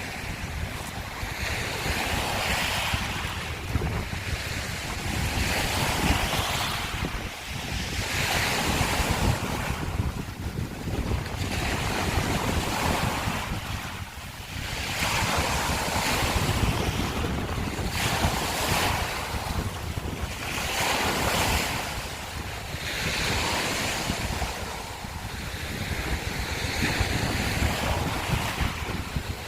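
Small sea waves breaking and washing over a shore of broken scallop shells, each wash swelling and fading every few seconds. Wind rumbles on the microphone underneath.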